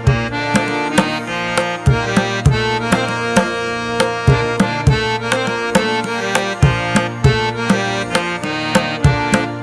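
Background instrumental music: a quick drum rhythm over held melodic notes.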